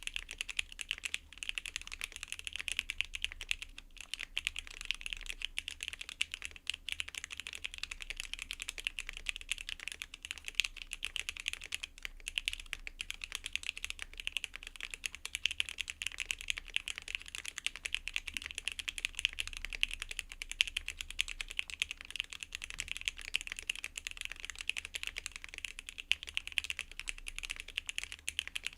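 Fast, continuous typing on a custom Neo Ergo mechanical keyboard with Najakeys TU linear switches: a dense, unbroken stream of keystrokes.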